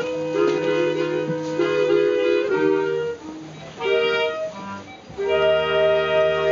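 Clarinet ensemble, with a bass clarinet among the clarinets, playing held chords. The music thins out briefly about three seconds in and again about five seconds in, then settles on a long held chord near the end.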